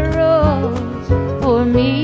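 A woman singing a country song over acoustic guitar and bass.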